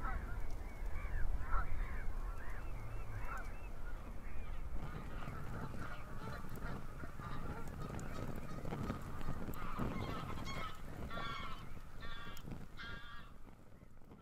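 Geese honking in repeated short calls, with small crackles from a wood fire underneath. The sound fades out at the end.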